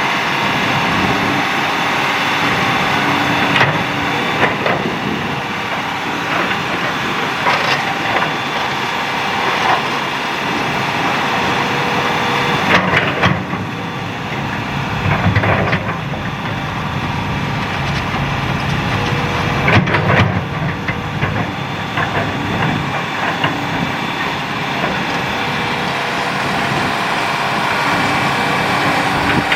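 Hitachi hydraulic excavator's diesel engine running steadily while it digs, with scattered sharp knocks and clatter from the bucket working rock and sand-gravel fill.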